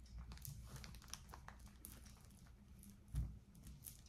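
Faint crinkling and light clicking as a tangled statement necklace is handled and straightened out by hand, with a soft thump about three seconds in.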